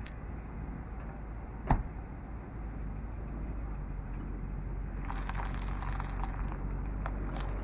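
Infiniti FX50S's 5.0-litre V8 running steadily with a low drone. A single sharp knock comes about a second and a half in, and from about five seconds in a crackling noise joins as the level rises slightly.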